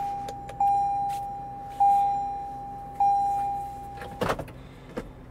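An electronic chime at one steady pitch, dinging three times just over a second apart, each ding fading before the next, and stopping about four seconds in. A short knock follows.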